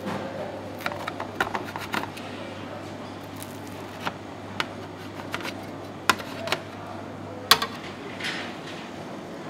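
Wide metal blade cutting through crisp filo pastry and tapping against the metal tray beneath: a scattered series of sharp clicks and knocks, the loudest about seven and a half seconds in, over a steady low hum.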